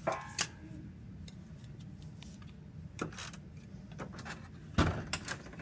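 Handling noise from a handheld camera: a few scattered clicks and knocks over a faint room background, the loudest cluster near the end.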